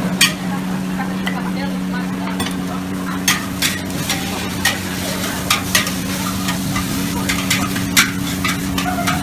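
Noodles stir-frying in a large wok: metal spatula and ladle scraping and clanking against the wok at irregular moments, with the food sizzling, over a steady low hum.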